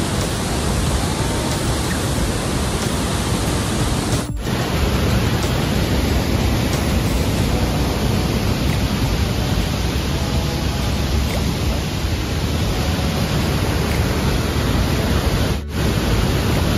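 Waterfall on the Yellowstone River heard close up at its brink: a loud, steady, dense rush of falling water, broken by two very short dropouts about four seconds in and near the end.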